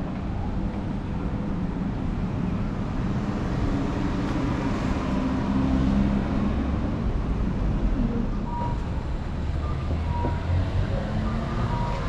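Steady low rumble of a vehicle in motion, with a few faint brief tones in the last few seconds.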